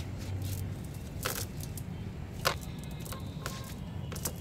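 A cast net being handled, giving a few short clinks and rustles from its weighted edge and mesh, with a sharper one a little past a second in and another about halfway, over a steady low background noise.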